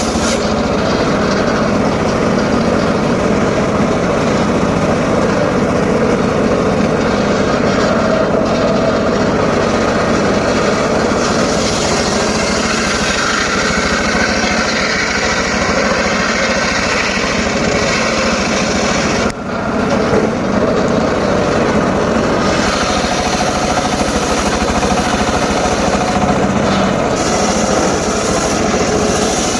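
Homemade circular saw running steadily with a continuous mechanical drone, its level dipping briefly about two-thirds of the way through.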